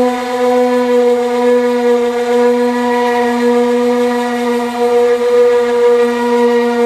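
A power tool running at a constant speed, giving one loud, steady tone that does not change in pitch.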